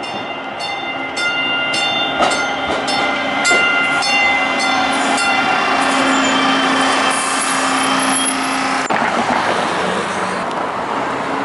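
Baltimore Light Rail train pulling into a stop and rolling past close by. For the first five seconds there is a repeated ringing, about two strikes a second, then a steady hum. About nine seconds in, the sound changes abruptly to street traffic noise.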